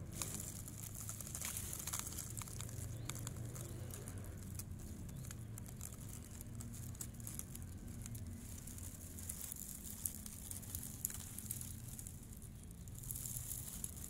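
Dry grass of a bird's nest rustling and crackling close to the microphone as the nest is handled, with a few sharp clicks and a low rumble underneath.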